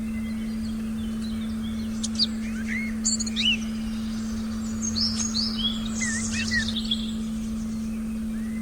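Forest birds chirping, with a flurry of short, quick calls between about two and seven seconds in. Underneath runs a steady, unchanging low meditation tone.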